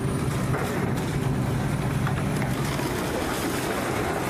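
A vehicle engine running steadily with a low, even hum and background rumble.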